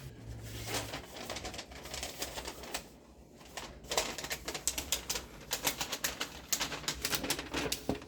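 Rapid light clicking and rattling, like small hard objects being handled, scattered at first and much denser over the second half.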